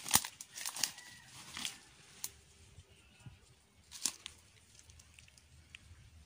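Dry leaves and twigs rustling and crackling as someone pushes through brushy undergrowth, with a run of sharp crackles in the first two seconds and one more about four seconds in, then quieter.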